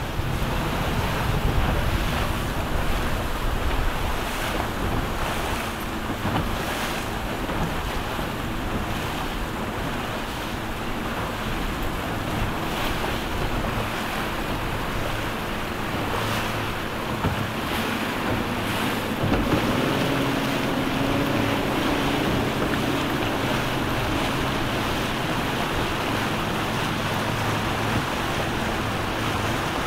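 Open-water ambience: wind buffeting the microphone and water noise, with boat engines running at idle underneath. The engine hum becomes clearer about twenty seconds in.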